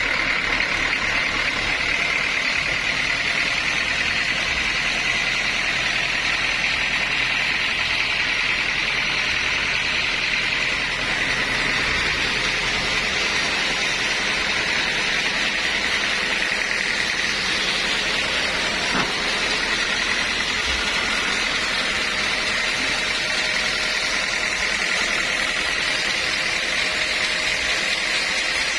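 Sawmill running steadily with a loud, even, hissing whine from the saw and its machinery; a low hum underneath fades about halfway through.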